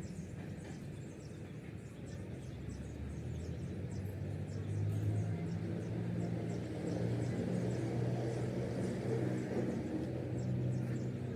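An engine or motor running steadily with a low hum that gets stronger a couple of seconds in.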